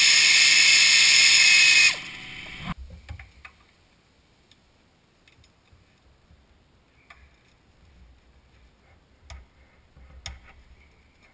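A power ratchet runs steadily for about two seconds, loosening a motor mount bolt, then stops. After that there are only scattered faint clicks and clinks as the tool and bolts are handled.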